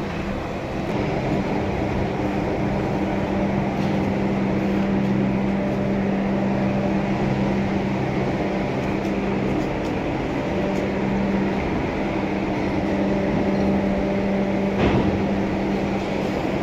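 A machine running steadily with a constant low hum. A single brief knock comes about fifteen seconds in.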